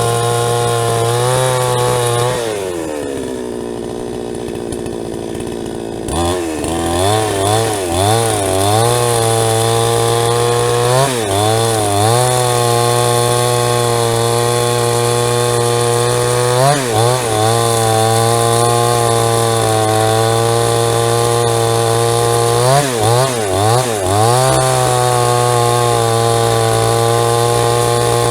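JCK chainsaw with a 22-inch bar, running at high revs while sawing a log into lumber. About two seconds in it drops to idle, revs back up after about four seconds, and its pitch dips briefly several times as the chain bites into the wood.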